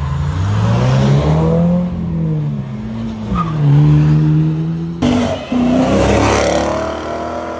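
Car engine revving hard while its tyres spin and squeal in a burnout, the pitch climbing and then dropping once about three seconds in. About five seconds in the sound cuts sharply to another car accelerating hard, rising in pitch and then fading near the end.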